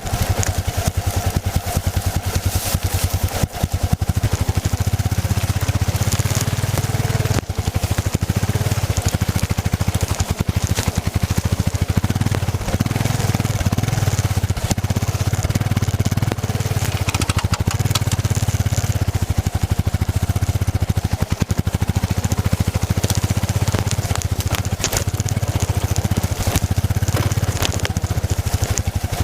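Yamaha XT660Z Ténéré's single-cylinder four-stroke engine running under way, a steady low pulsing note that briefly dips a few times.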